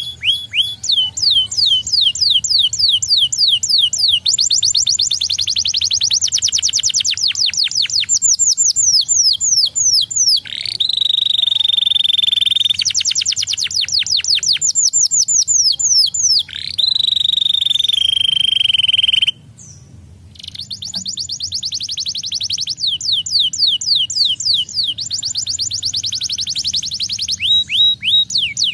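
Domestic canary singing: long runs of fast trills made of rapidly repeated falling notes, twice broken by a long held whistle, with a short pause about two-thirds of the way through.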